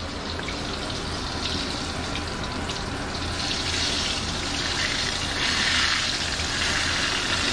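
Egg-battered stuffed poblano chiles frying in hot oil in a wok, a steady sizzle that grows stronger a few seconds in, over a low steady hum.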